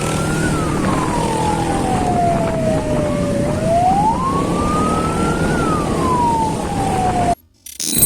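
Emergency siren on a slow wail, its pitch climbing and sinking in long sweeps over steady road noise. The sound cuts off suddenly near the end, followed by a brief loud burst.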